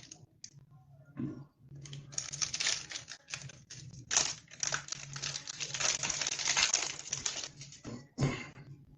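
A foil trading-card booster pack wrapper being torn open and handled, crinkling in uneven stretches, with a last short crinkle near the end.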